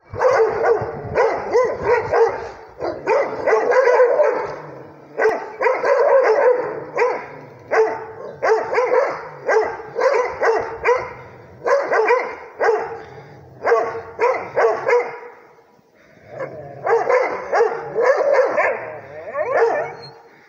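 Rhodesian ridgebacks barking in rapid runs of barks, several a second, with a brief lull about sixteen seconds in.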